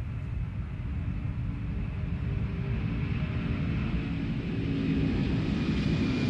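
Boeing 747SP's jet engines at takeoff power as the airliner lifts off the runway: a steady low rumble with a faint high whine, growing gradually louder.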